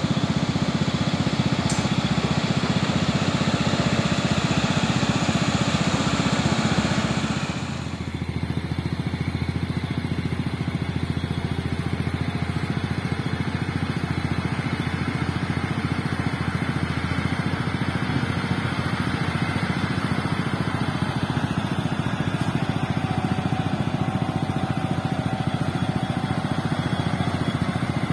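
Diesel engines of Sinotruk Hohan dump trucks running steadily. About seven seconds in, the sound changes abruptly to a deeper, duller engine drone as a dump truck drives on a dirt slope.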